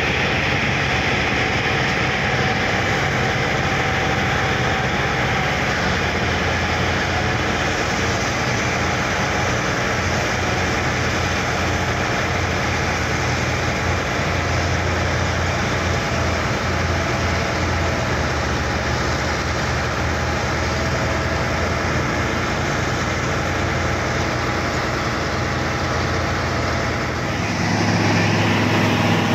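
Crawler bulldozer's diesel engine running steadily under load as it tows a loaded logging truck up a muddy slope. About two seconds before the end the engine sound turns deeper and a little louder.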